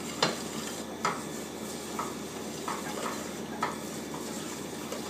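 Wooden spoon stirring flour into hot oil in a stainless steel pot, the start of a roux: short scrapes and knocks against the pot about once a second over a steady hiss.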